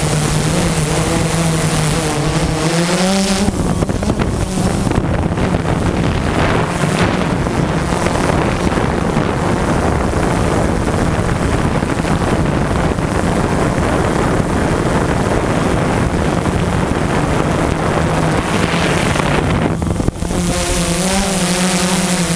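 Camera drone's motors and propellers humming steadily, the pitch wavering up and down as it manoeuvres. From about four seconds in until near the end a loud rushing noise covers the hum, then the wavering hum returns.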